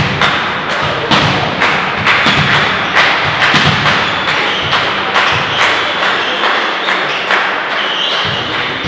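Spectators beating out a steady rhythm of sharp beats, about two to three a second, which stops about eight seconds in.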